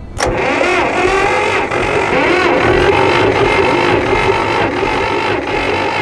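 Starter motor cranking a 50-year-old four-cylinder flathead engine of an old Massey Ferguson backhoe for a compression test, spinning briskly and steadily on a good battery. It starts about a quarter second in, and the tested cylinder builds a little over 120 psi, which is a sound reading for this low-compression engine.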